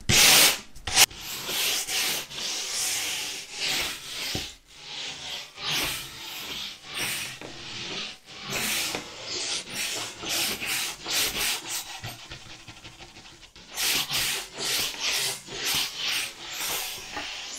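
A small brush scrubbed back and forth over a finished diamond painting canvas, its bristles rasping across the rows of resin drills in quick, repeated strokes, about two a second. This is the dusting of the canvas before it is rolled and sealed with glue.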